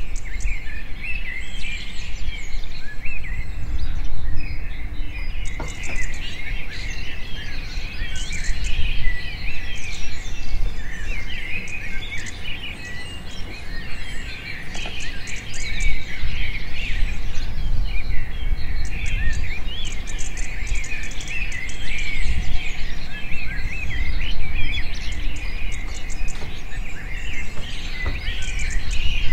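Many birds chirping and twittering at once in a dense, continuous chorus over a steady low rumble.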